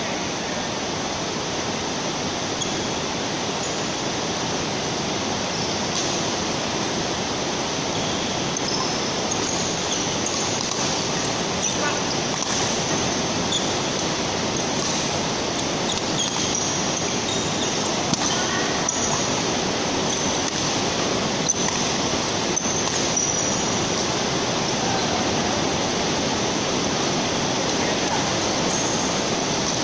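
Steady rushing noise of a large indoor badminton hall, under faint shoe squeaks on the court and a few light racket-on-shuttlecock hits from a doubles rally.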